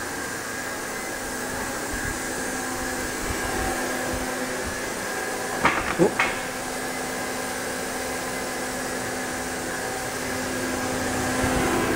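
Hardinge VMC-1000 CNC vertical machining center running with its spindle turning at 1000 RPM: a steady machine hum with several held tones. A few brief knocks and a short falling squeak come about halfway through.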